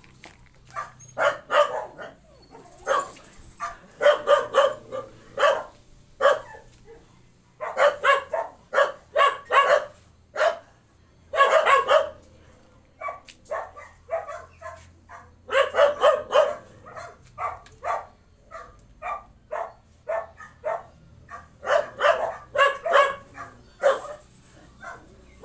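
A dog barking in repeated bursts of several short barks, with brief pauses between bursts.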